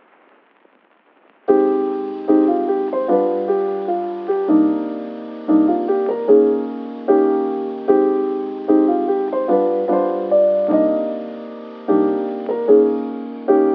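Soft background piano music, with chords struck at an unhurried, even pace, coming in about a second and a half in after a faint hiss.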